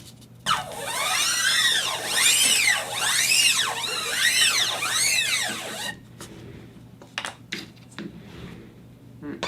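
Vinyl record scratched back and forth by hand on a turntable. It makes slow strokes, about one a second, each a pitch sweep that rises then falls, for about five seconds. A few light clicks follow.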